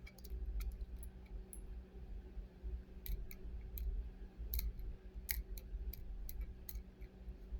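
Plastic number wheels of a combination barrel bolt clicking as they are turned, a scattered run of small sharp clicks: the combination 1-2-3-4 being dialed in.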